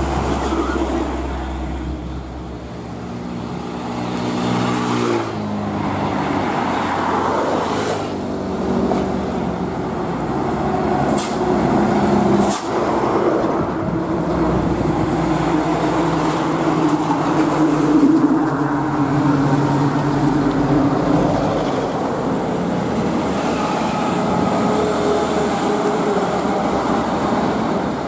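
Heavy diesel trucks and cars passing close by on a road, with engine notes that drop and rise again about five seconds in. A few sharp clicks come around the middle.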